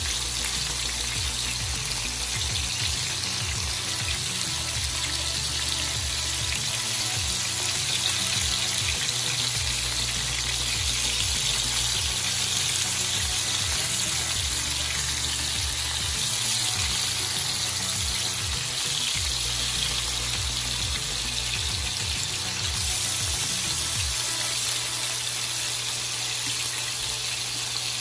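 Beef steaks searing in butter in a cast-iron grill pan: a steady sizzle.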